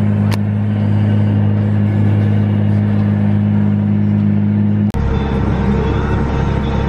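Case IH Steiger articulated tractor's engine running with a steady drone, heard from inside the cab while working ground. About five seconds in the sound changes abruptly to a lower, rougher drone.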